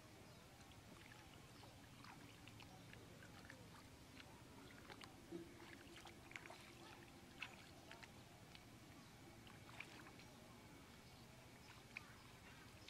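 Faint, scattered small splashes and squelches of hands and bare feet working through shallow muddy water, with irregular soft ticks and plops.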